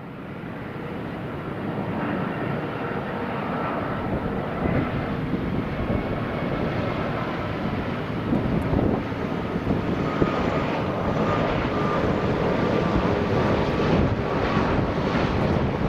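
Airbus A330 airliner's jet engines on landing approach: a broad rumble with a thin steady whine over it, growing louder over the first couple of seconds and then holding steady.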